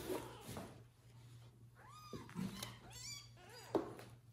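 Newborn kittens mewing: several short, thin, high calls about two to three seconds in. A sharp knock sounds shortly before the end.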